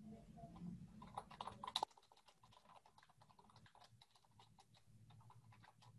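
Faint typing on a computer keyboard, a quick run of light clicks for about the first two seconds, then near silence.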